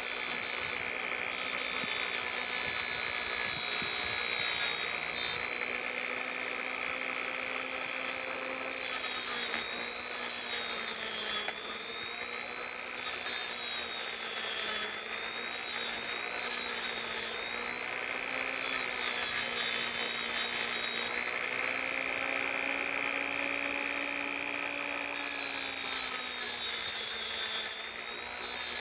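Handheld high-speed rotary tool running steadily while cleaning up steel ratchet parts. Its whine dips and recovers in pitch several times as it is pressed against the work.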